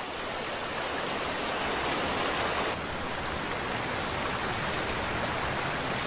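Steady rushing of a river running high and fast, swollen with autumn rain. The sound shifts slightly a little under three seconds in.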